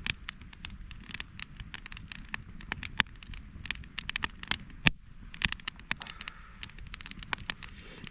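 Wood campfire crackling, with irregular sharp pops and snaps, the loudest about five seconds in.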